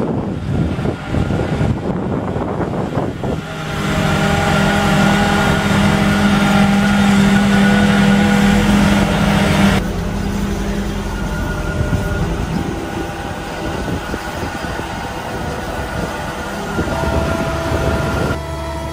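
Kodiak K10 tracked digger derrick's engine running as the rubber-tracked carrier crawls over rough ground, a steady mechanical drone whose level and pitch jump abruptly a few times.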